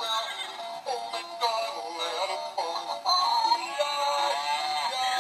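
Background music with a pitched melody line sung or played over it, running steadily at a moderate level.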